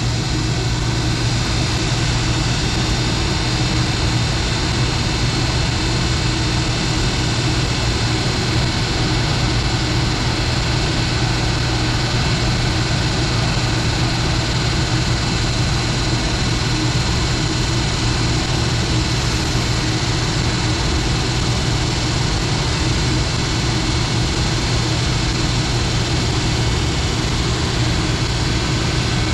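EF210 electric freight locomotive standing with its equipment running, giving a steady, loud electric hum with a constant low drone and high whine.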